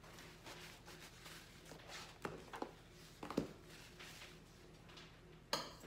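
Quiet handling sounds as hands are wiped on a towel, with a few sharp small clicks and knocks, the loudest near the end. A faint steady hum runs underneath.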